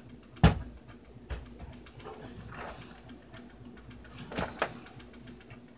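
A few sharp knocks and clicks of objects being handled, the loudest about half a second in and a pair near the end, over a faint steady hum.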